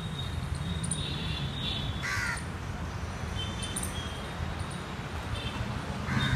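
Crows cawing: one harsh caw about two seconds in and another near the end, with smaller birds chirping faintly in between over a steady low hum.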